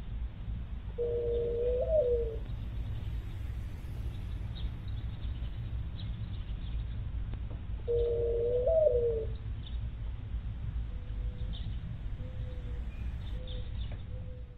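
A bird gives two long calls about seven seconds apart, each a held note that flicks up and then drops at the end. A few short notes at the same pitch follow near the end, over a steady low rumble.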